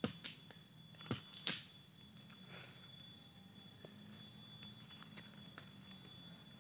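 Dry twigs and kindling snapping and cracking at a small smoking campfire as it is fed: several sharp snaps in the first second and a half, then fainter ticks and rustling.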